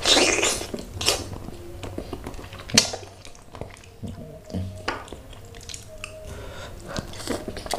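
Close-miked eating of a curried snapper head by hand: a loud wet slurp right at the start as a piece is sucked off the fingers, then chewing, lip smacks and squishy finger sounds picking through the fish head in thick curry sauce.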